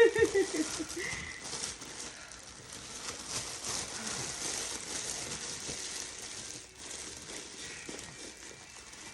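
Packaging crinkling and rustling as it is handled, with many fine ticks over a steady hiss.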